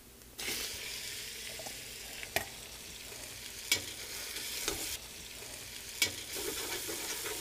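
Raw chicken thigh pieces sizzling in hot oil with sautéed onions and garlic in a metal stockpot. The sizzle starts suddenly about half a second in, and the spoon stirring the chicken knocks against the pot a few times.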